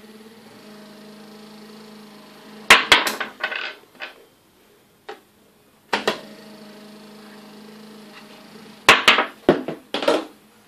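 Small 24 V belt conveyor's drive motor running with a steady hum, which stops twice amid a cluster of loud clacks and knocks at the control box, and starts again with a click about six seconds in, as the red emergency-stop button is pressed and released.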